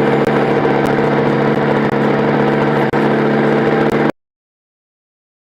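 Recorded tractor engine idling sound effect played by a Motoi tractor kiddie ride's attract mode, a steady drone that cuts off suddenly about four seconds in.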